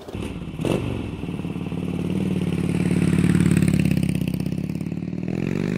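Harley-Davidson V-twin motorcycle engine running with a pulsing beat, then rising in pitch near the end as it is revved. A sharp click sounds shortly after it starts.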